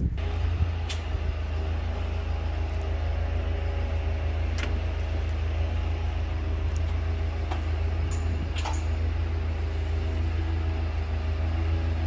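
An engine running steadily with an even low hum, with a few faint sharp ticks over it.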